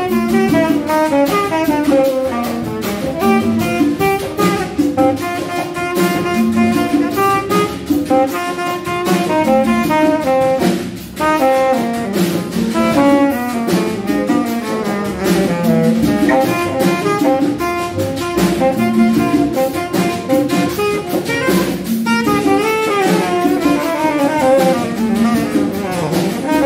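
Tenor saxophone improvising a jazz solo in fast runs of notes over a Latin funk accompaniment with drums.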